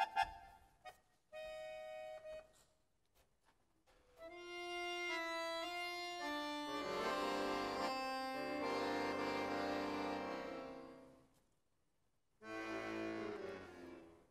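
Concert accordion playing in abrupt bursts with silences between: a short chord, then a quick run of single notes that builds into a loud, dense sustained chord and fades out, and after a pause another chord that dies away.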